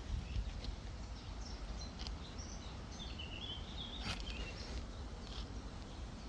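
Small birds chirping and warbling in the background, strongest in the middle of the stretch, over a steady low rumble.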